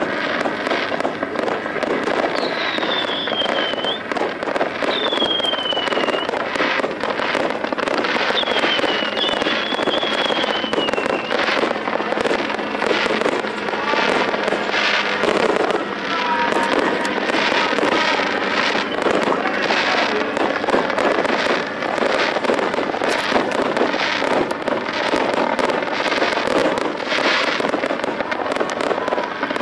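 Fireworks fired from a small display helicopter, crackling and popping continuously. Three falling whistles come in the first ten seconds or so.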